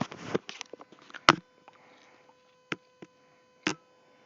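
Airsoft gun: one loud sharp snap about a second in, then three fainter separate clicks, the sound of the gun being fired and worked.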